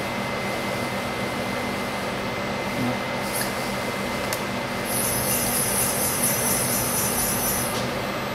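Steady electrical hum of a CNC milling machine standing powered up, with a high hissing whine that sets in about five seconds in and stops about three seconds later.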